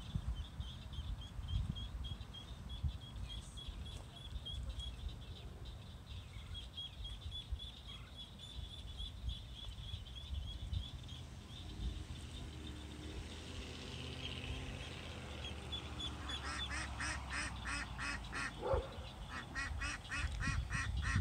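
Ducklings peeping: a quick, steady run of short high peeps that grows louder and fuller for the last few seconds as they swim close.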